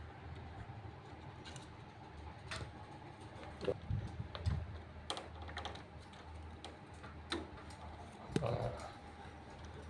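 Irregular small clicks and plastic knocks of wires and plug connectors being handled and pushed onto an air conditioner's indoor-unit control board, over a low steady hum.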